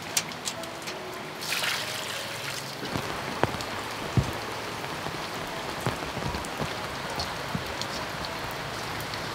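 Steady rain hissing, with a brief gritty scrubbing of fish in coarse salt in a steel bowl between one and two seconds in, and a few sharp knocks and taps as the fish are handled.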